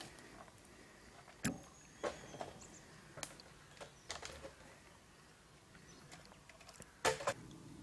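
A few scattered sharp knocks and clunks of gear and wood being handled as chainsaws are stowed on a loaded log trailer. The loudest is a quick double knock about seven seconds in.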